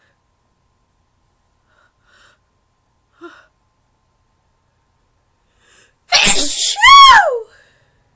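A woman's induced sneeze. A few faint small sounds come first. About six seconds in there is a sudden loud noisy burst, followed by a high-pitched "choo" that falls in pitch.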